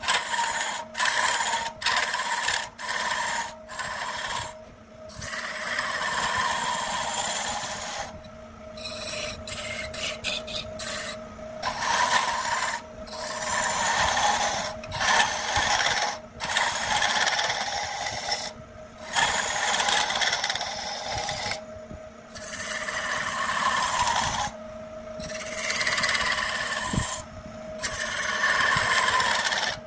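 Gouge cutting a spinning wooden spindle on a lathe: a rough, rasping hiss of shavings coming off in repeated passes, broken by many short breaks, over a steady hum.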